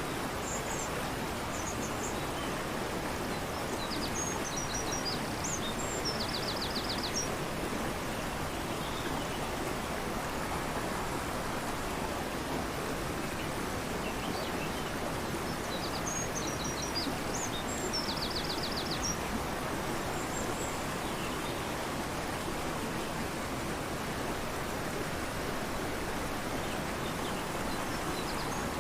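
Fast-flowing river rushing steadily, with a small songbird singing a high phrase of chirps that ends in a quick trill. The song comes three times, the last near the end.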